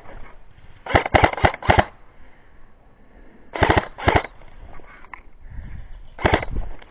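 Airsoft guns firing: a quick run of about five sharp shots about a second in, two more a couple of seconds later, and a single shot near the end.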